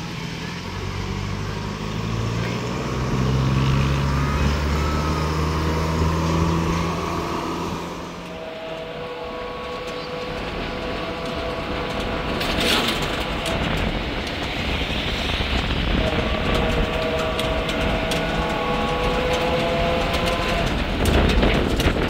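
A motor running: a steady low drone for about eight seconds, then a steadier, higher whine, with a sharp knock about two-thirds of the way through.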